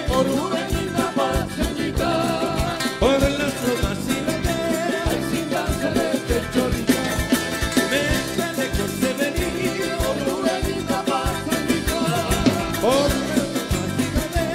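Live band playing upbeat Latin dance music with a steady beat.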